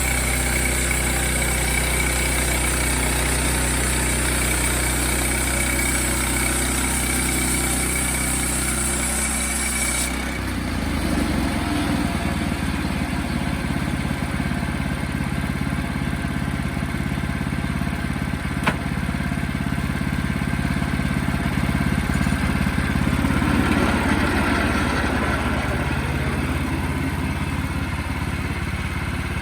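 Sawmill engine running steadily. About ten seconds in, a high hiss stops and the engine note drops and turns rougher. A single sharp click comes about two-thirds of the way through.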